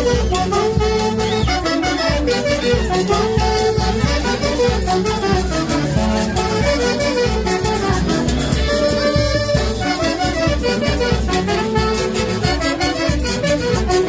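Orquesta típica playing a huaylash: a section of saxophones carries a wavering melody in unison over a steady, driving beat.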